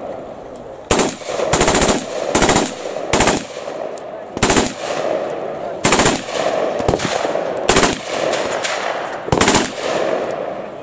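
Colt M16A1 rifle firing 5.56 mm on full auto in short bursts of a few rounds each: about eight bursts, roughly a second apart.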